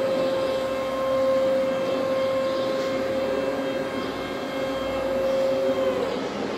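Linde E15 electric forklift's hydraulic pump motor whining at a steady pitch as the mast is raised, sagging in pitch and stopping near the end.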